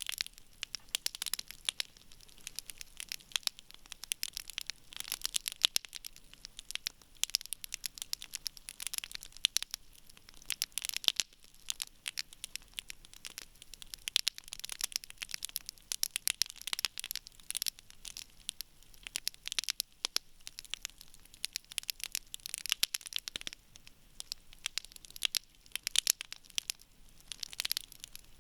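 Wood campfire crackling: a steady stream of irregular sharp pops and snaps from the burning logs over a soft hiss.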